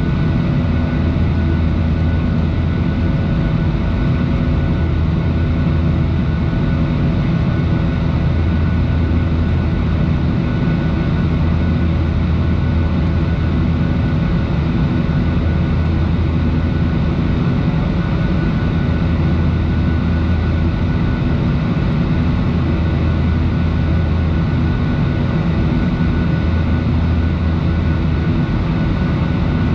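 Cabin noise inside a Boeing 737-800 climbing out after takeoff: the CFM56-7B turbofan engines' steady drone, with a deep rumble, several thin steady whining tones and airflow hiss, unchanging throughout.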